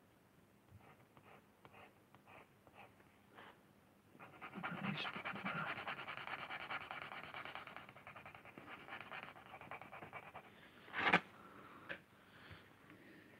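Pen drawing on a lino block: a few light separate strokes, then from about four seconds in several seconds of fast, dense back-and-forth scribbling as an area is shaded in. A sharp knock near the end.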